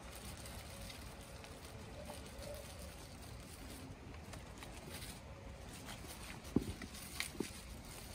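Quiet rustling as guavas are taken out of their white protective fruit bags and handled, with a few short sharp taps near the end.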